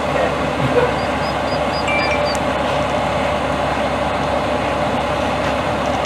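Steady rumble of vehicle engine and traffic noise. A few short, faint high chirps come about a second to two seconds in.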